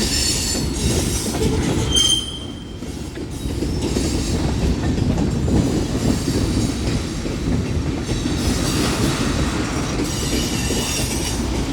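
Freight cars of a Union Pacific manifest train rolling past with a continuous rumble and clatter of wheels on rail. High-pitched wheel squeal rises over it at the start, as a short steady tone about two seconds in, and again near the end.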